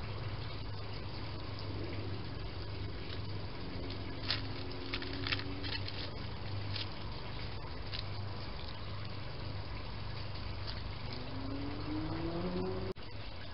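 Steady low hum and hiss from a trail camera's microphone, with a run of faint clicks and rustles about four to six seconds in as a hedgehog roots nose-down through dry leaves. A faint rising whine near the end, then the sound cuts off abruptly.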